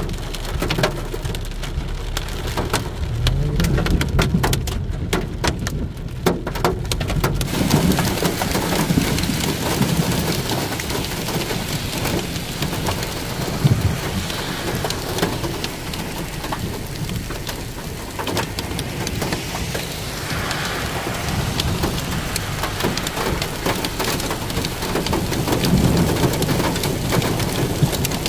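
Heavy rain. At first separate drops strike a surface as a dense patter, then about seven seconds in it thickens into a steady, even downpour.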